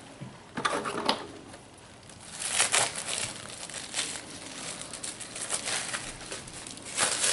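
Clear plastic packing wrap crinkling in bursts as it is handled, with a short pause in the first two seconds and near-continuous crinkling after that.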